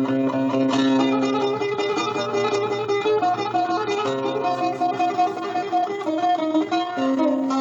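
Instrumental folk music: a plucked string instrument playing a quick run of notes over a steady held low drone.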